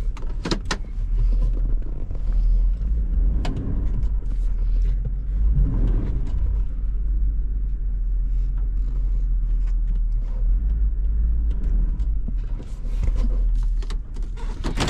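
Hummer H2's V8 running, a steady low rumble heard inside the cabin, with a few sharp clicks near the start and again about three and a half seconds in.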